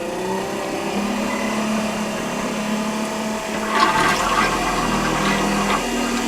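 Electric macerator pump of a sailboat's marine toilet running, a steady motor hum under rushing water as it grinds up the bowl's contents and pumps them overboard. About four seconds in the water noise grows louder and rougher for some two seconds.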